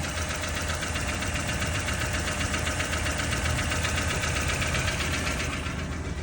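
1994 Toyota Tercel engine running with a fast, steady clicking over the engine hum. The clicking grows a little louder in the middle and eases back near the end. The owner is unsure whether the clicking is normal.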